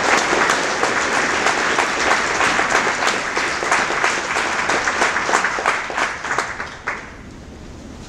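A large crowd applauding, the clapping thinning out and stopping about seven seconds in.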